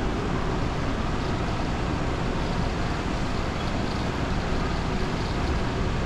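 Steady rumble and hiss of the DFW Skylink airport tram standing at the station, heard through the glass platform screen doors.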